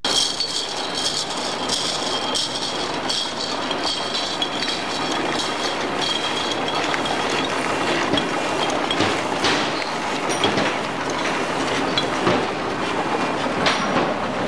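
ALB-610C single-side labeling machine running, with glass bottles clinking against each other and the guide rails as the conveyor carries them through in a steady clatter. A thin high whine sounds over it for the first few seconds.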